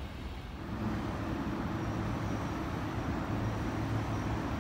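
Electric regional train of Piano Ribassato double-deck coaches pushed by an E.464 electric locomotive, moving slowly along the platform toward the listener. It gives a steady low electrical hum that comes in about a second in and slowly grows louder.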